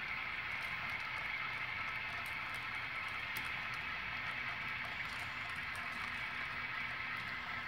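HO scale model freight train rolling past: a steady rolling noise of small wheels on track, with scattered light clicks.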